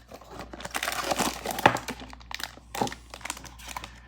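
Blind-box packaging crinkling and tearing as it is opened by hand, irregular crackle with a sharper crack about a second and a half in.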